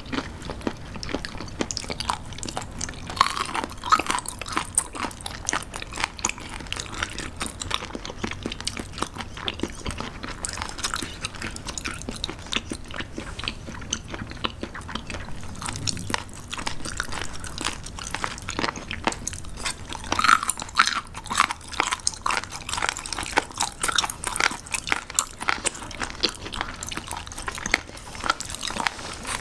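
Close-miked chewing of crunchy raw seafood sashimi (gizzard shad, spoon worm and abalone): a dense run of small crisp crunches and bites, with a few louder crunches early on and again about two-thirds of the way through.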